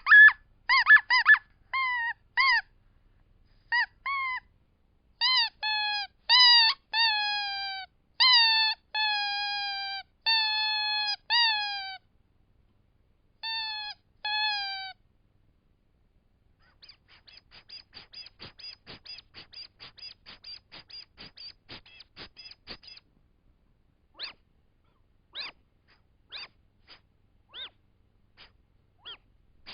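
Rubber squeaky animal toys being squeezed. First comes a string of shrill squeaks, some short and some drawn out for about a second with a sagging pitch. Then comes a fainter rapid run of short squeaks, about five or six a second, and near the end a few single squeaks about a second apart.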